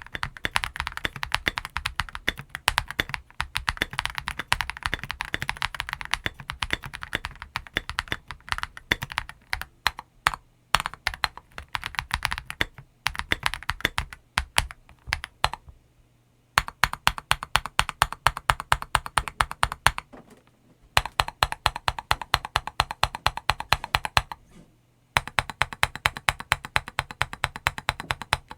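Typing on a KBDFans Tiger Lite tenkeyless mechanical keyboard fitted with CS Vintage White linear switches and MT3 keycaps: fast runs of keystrokes broken by a few short pauses.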